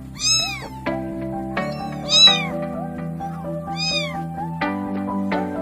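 Kittens mewing: three or four short high-pitched mews that rise and fall, the loudest a little over two seconds in, over background music with held chords and a steady beat.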